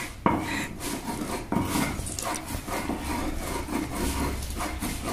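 A hand-held grinding stone rubbed back and forth over a wooden board, grinding soaked bhang (cannabis leaves) into paste: a rough, rhythmic scraping with an occasional sharper knock.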